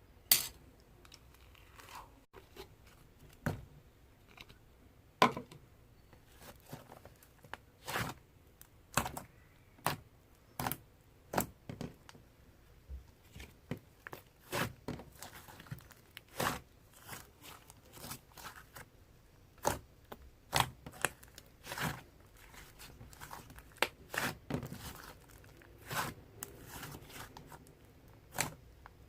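Hands squishing and kneading slime, making irregular sticky pops and clicks, roughly one or two a second.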